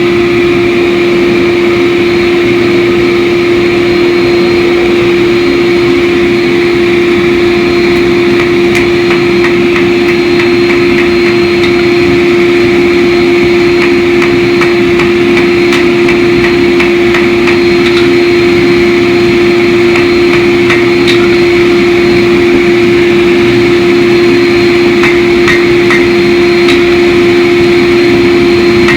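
A shop machine running steadily with a constant hum, with faint light clicks or taps scattered through.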